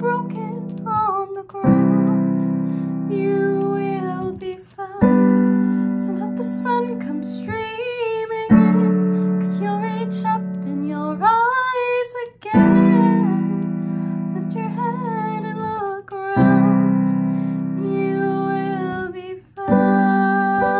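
A woman singing a slow ballad with vibrato over piano accompaniment. A new piano chord is struck about every three and a half seconds.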